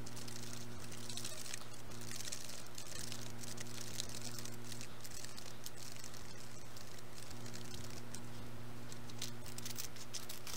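Small faint clicks and crinkles of plastic candy-kit trays, a plastic spoon and packets being handled, over a steady low hum and hiss.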